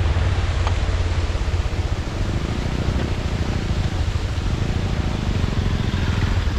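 Motorcycle engine running steadily while the bike is ridden, a continuous heavy low rumble.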